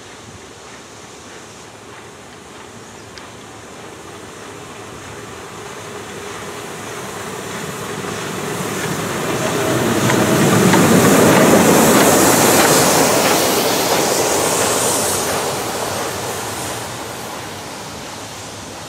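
SNCF 231G 558 steam locomotive running through a station and past at speed. It grows louder to a peak about eleven seconds in, then fades as it goes away.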